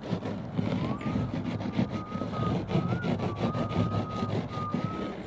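Frost being scraped off a car windscreen by hand, a rapid gritty scraping of fingers over the iced glass, over a steady low engine hum. A thin wavering whistle-like tone joins about a second in.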